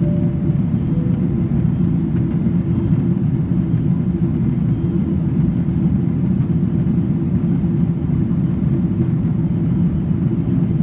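Airliner jet engines making a steady low rumble, with no rise or fall in level.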